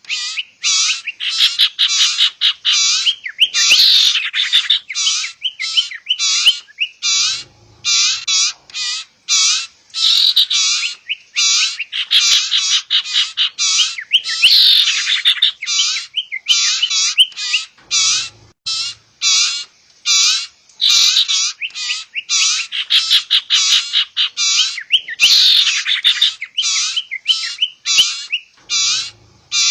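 Lure recording of sirtu birds, adult calls mixed with the calls of young birds: loud, fast, repeated short chirps, about three a second, with scratchier chattering passages every ten seconds or so.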